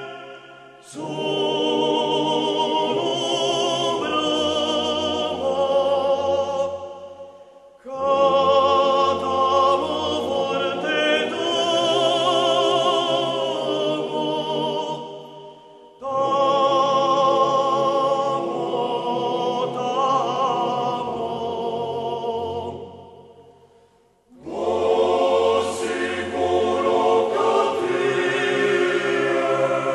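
Background vocal music: singing with vibrato in long phrases about eight seconds each, every phrase fading away before the next begins.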